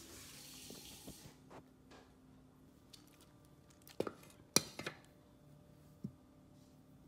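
Shiba inu eating from a stainless steel bowl: a few sharp clinks of the metal bowl, the loudest about four to five seconds in, and a smaller one near six seconds.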